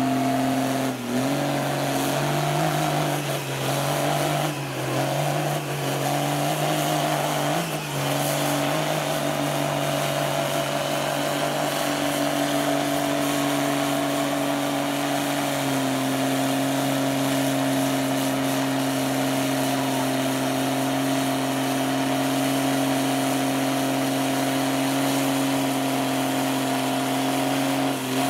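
Lifted Chevrolet square-body mud truck's engine running at steady, held revs as the truck pushes slowly through deep mud. The pitch steps up about a second in and drops slightly about halfway through.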